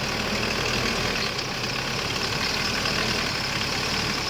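Hyundai Starex CRDi diesel engine idling steadily.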